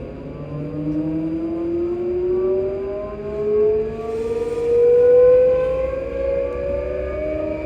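ScotRail Class 334 electric multiple unit's traction motors whining as the train accelerates, several tones rising steadily in pitch together over a low rumble.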